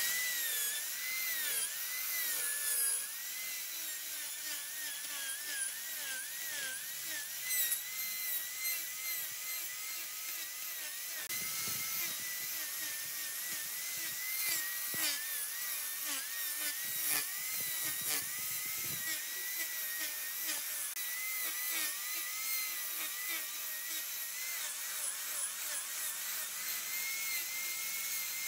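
Angle grinder running with its disc cutting into the rim of a wooden vase spinning on a lathe: a high whine that wavers up and down as the disc bites into the wood, over a steady hiss of grinding.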